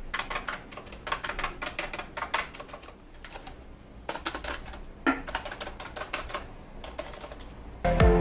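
Keys of an HP K500F membrane gaming keyboard being pressed and tapped in quick runs with short pauses, a rapid clatter of key clicks. Louder music comes in near the end.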